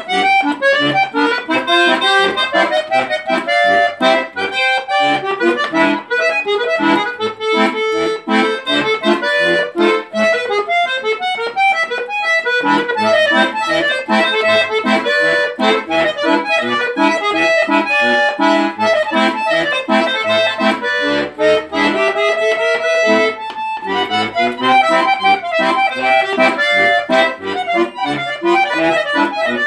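Accordion playing a fast instrumental piece: quick runs of melody notes over short bass notes.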